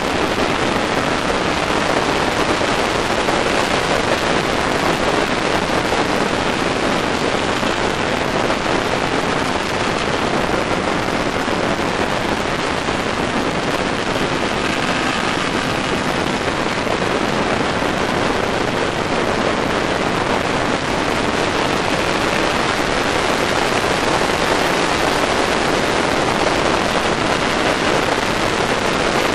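Steady wind rush over the microphone of a camera riding on a moving motorcycle at speed, an even hiss with no clear engine note standing out.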